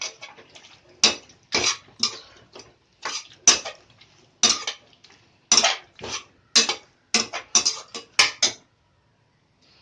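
Metal spoon scraping and clattering against a cooking pot in a run of quick, irregular strokes, about one to two a second, as mutton pieces are stirred with turmeric. The strokes stop shortly before the end.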